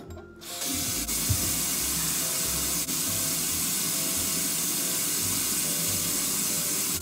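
Kitchen faucet turned on about half a second in, then water running steadily into a stainless steel sink as hands are washed in the stream, with a brief low knock about a second in.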